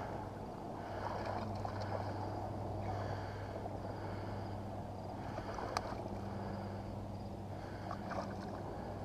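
Fishing kayak under way on calm water: soft, uneven water sounds along the hull over a steady low hum, with a single sharp click a little before six seconds in.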